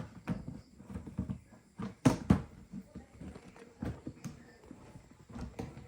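Plastic incubator parts being handled and fitted together: a string of clicks and knocks, the loudest two about two seconds in.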